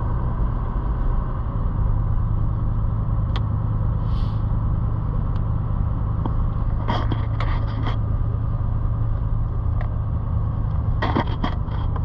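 Car driving: a steady low rumble of engine and road noise, with a few short clicks or rattles about halfway through and again near the end.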